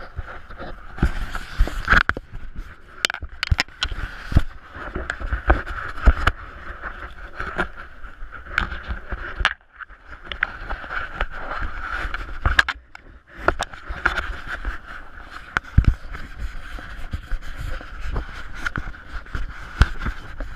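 Spinning reel whirring steadily as a hooked lake trout is reeled in, pausing briefly about halfway, with scattered sharp knocks and scrapes of boots on the ice.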